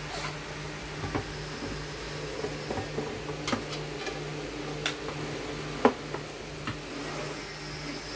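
Clicks and knocks from the opened stereo system's metal and plastic chassis being handled on a workbench, the loudest knock about six seconds in, over a steady low hum.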